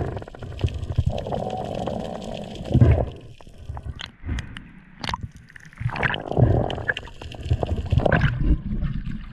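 Underwater gurgling and sloshing water around a freediver, with uneven swells of low rumble and scattered sharp clicks.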